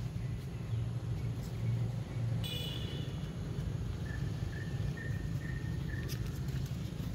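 Steady low rumble of distant road traffic, with a brief high chirp about two and a half seconds in, a faint thin whistle-like tone a little later, and a few light clicks near the end.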